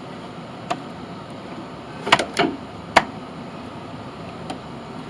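A few short knocks and clinks of parts being handled as a mower's recoil starter assembly is set into place on the engine: one about a second in, a quick cluster around two seconds, and a sharper knock at three seconds.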